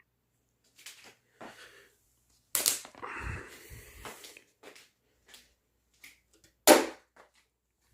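Objects being handled in a small room: scattered light clicks, a louder knock followed by rustling about two and a half seconds in, and a sharp knock near the end.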